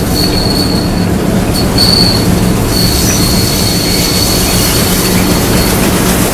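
WDM3 diesel locomotive running along the line, heard up close from its side walkway: a steady engine and running drone with a high-pitched wheel squeal that comes and goes, longest from about three to six seconds in.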